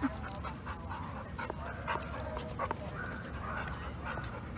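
A dog panting, with a few faint clicks scattered through.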